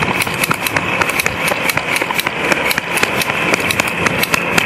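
Airsoft guns firing during a game: a dense run of sharp, irregular clicks and snaps, several a second, over a steady hiss.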